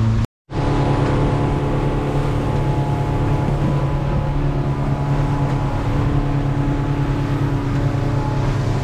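A fishing boat's engine running steadily at cruising speed, with water rushing along the hull. There is a brief dropout to silence just after the start.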